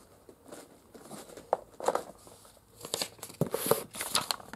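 A folded paper note being pulled out of a cardboard box and unfolded: rustling and crinkling of paper, a few scattered rustles at first and busier handling in the last second and a half.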